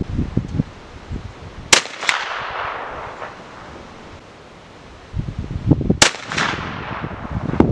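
Two shots from a .375 H&H bolt-action rifle firing a light Green Dot load behind a cast lead bullet, about four seconds apart, each followed by a quieter second crack and a fading echo. Wind buffets the microphone between the shots.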